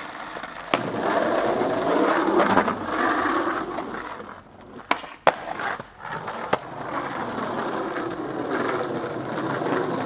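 Skateboard wheels rolling on rough asphalt, a steady gritty rumble that eases off midway and then picks up again, with a few sharp clacks of the board, about a second in and twice more near the middle.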